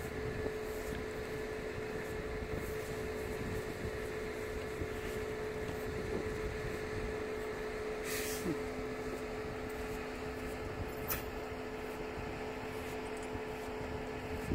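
Steady mechanical hum with a high, even whine; a second, lower steady tone joins about halfway through, with a few faint clicks.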